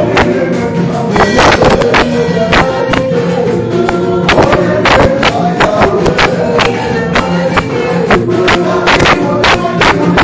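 Loud gospel praise music with singing and fast, steady percussion strikes.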